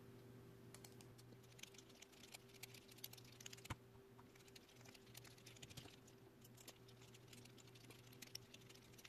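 Faint, quick, irregular clicking and ticking of a hex screwdriver turning two long countersunk bolts through a 3D-printed plastic idler wheel assembly.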